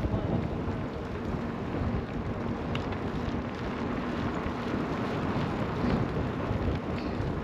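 Steady low rumbling noise of wind buffeting the microphone, with a faint steady hum and a few light clicks.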